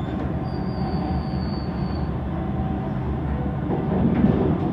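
Siemens Inspiro metro train running along elevated track, heard from inside the car: a steady rumble of wheels on rail, with a thin high-pitched whine for the first two seconds. The rumble grows a little louder near the end.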